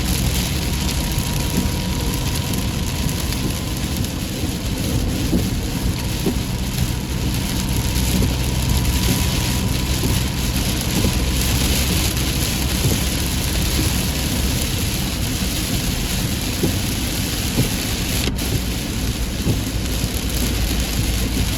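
Heavy rain pouring steadily over a constant low rumble.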